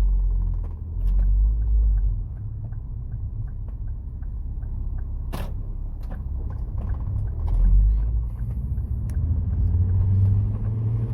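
Ford Focus ST225's turbocharged five-cylinder engine and road noise inside the cabin while driving, swelling at the start and again about eight seconds in. A sharp click about five seconds in, and a light regular ticking in between.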